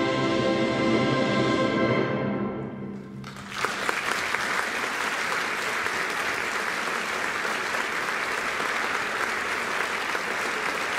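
A concert band holds a final sustained chord that dies away about three seconds in, and the audience then breaks into steady applause.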